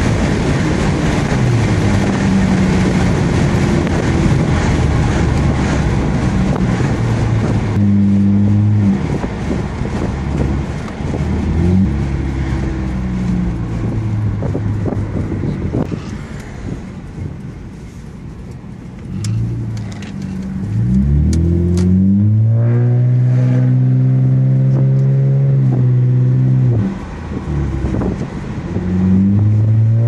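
A 2003 Honda Accord coupe's 3.0-litre V6 heard from inside the cabin through an OBX catback exhaust, with the resonator and muffler deleted. It pulls through the gears with pitch steps at each shift, then drops to a quieter, lower drone. Past the middle the revs climb sharply to a loud, high, held note, dip briefly, and rise again near the end.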